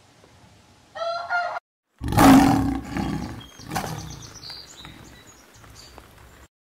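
A brief rooster call about a second in, then, after a short silence, a male lion roaring: a loud rough roar about two seconds in and a second one near four seconds, fading off, with faint bird chirps behind.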